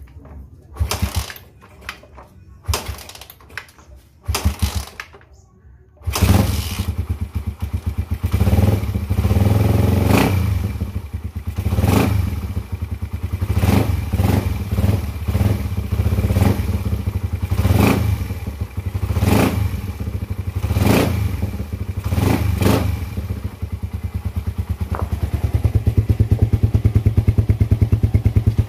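Underbone motorcycle engine, freshly fitted with a reground racing intake camshaft, catches about six seconds in after a few short knocks and runs, with repeated brief surges as the throttle is blipped, then settles into a steadier, louder run near the end.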